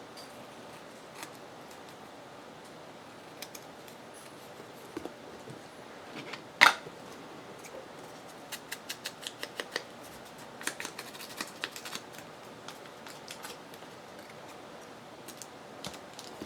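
Scissors cutting paper: scattered snips, one loud sharp click a little past halfway, then quick runs of snips, several a second.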